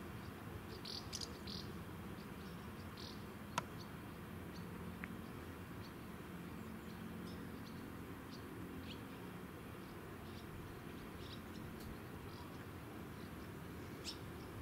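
Faint summer outdoor ambience: insects giving scattered short, high chirps over a low steady rumble. One sharp click sounds about three and a half seconds in.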